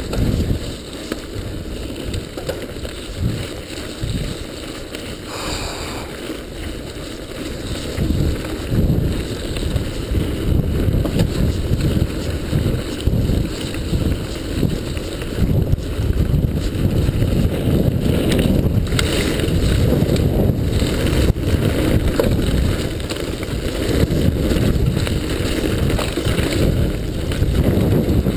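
Mountain bike tyres rumbling over a gravel trail on a fast descent, with wind buffeting the microphone and scattered knocks and rattles from the bike over bumps. The rush gets louder about a third of the way in.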